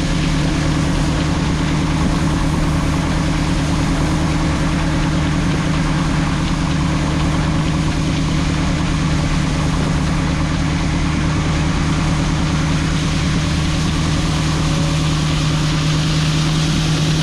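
Grain truck engine idling steadily with a constant low hum.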